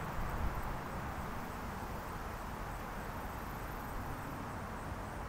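Steady outdoor wind noise: a hiss of wind through trees and shrubs, with a brief low buffet of wind on the microphone about half a second in.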